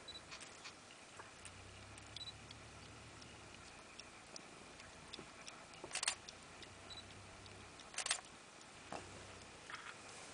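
Faint camera shutter clicks, with two louder clicks about two seconds apart past the middle, among scattered small ticks and a low hum.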